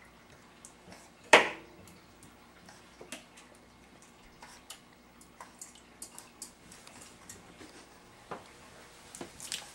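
Stainless steel water bowl knocking and clinking in its plastic stand as a West Highland White Terrier puppy plays in it, with scattered light taps and one loud clank about a second and a half in.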